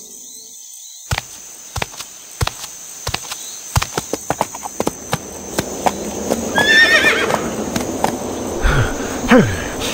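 Horse hooves clip-clopping at a walk, a sharp knock about every half second from a second in and then quicker, with a horse whinnying about seven seconds in.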